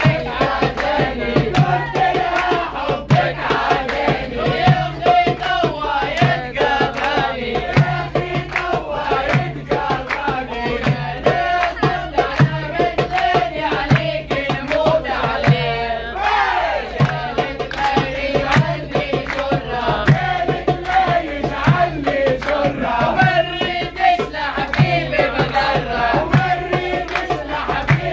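Loud party music with a steady drum beat and singing, while a crowd of passengers claps and shouts along.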